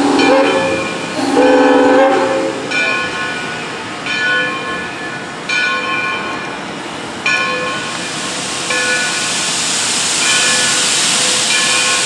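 Steam locomotive whistle sounding two blasts, a short one and then a longer one, followed by the locomotive's bell ringing about once every second and a half as the engine approaches. A hiss of steam grows louder toward the end.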